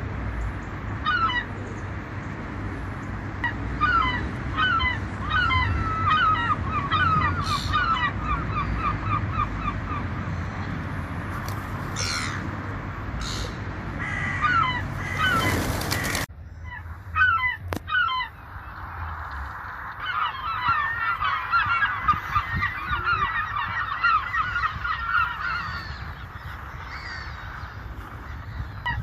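A flock of gulls calling, many overlapping squawks, some in quick repeated runs of laughing calls. A low steady rumble sits under the first half; a loud rushing noise comes just before it cuts off about halfway in, and the calls go on over a quieter background.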